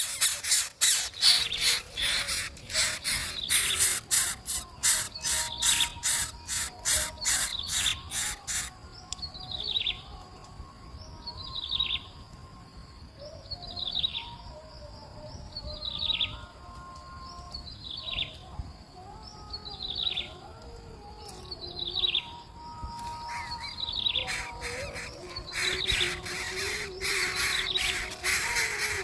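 A bird repeating a clear falling whistled call about every two seconds, roughly eight times, with fainter bird calls lower beneath it. Rapid rattling sounds fill the first third and return near the end.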